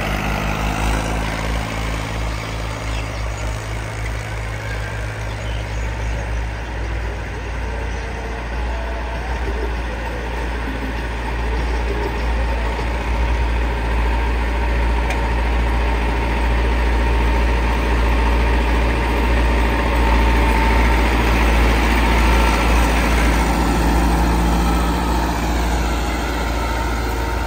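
Massey Ferguson tractor diesel engine running steadily under load while pulling a rotavator through the soil. It grows louder past the middle as the tractor comes closer.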